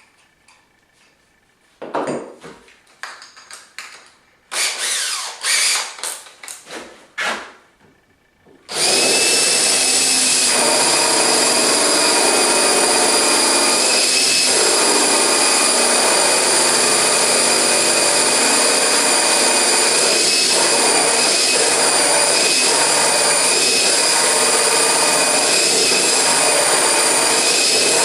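Metal clicks and clatter as the hole saw is swapped for the smaller one, then about nine seconds in an electric drill starts and runs steadily with a high whine, driving a hole saw into the door.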